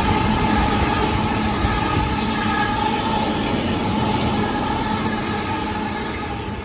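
Sydney Trains double-deck electric passenger train running past, its wheels rumbling on the rails with a steady whine over it. It eases off slightly near the end as the last cars go by.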